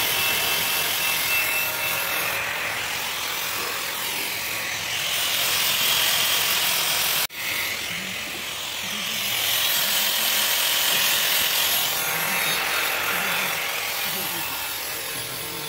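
Angle grinder grinding the weld at the corner of a stainless steel frame: a steady, loud grinding hiss whose pitch swells and fades as the disc is worked against the metal, breaking off for an instant about seven seconds in.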